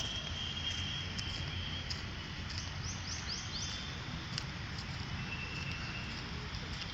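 Outdoor rural ambience: a steady low rumble and hiss, with a bird giving a quick run of about five rising chirps about halfway through.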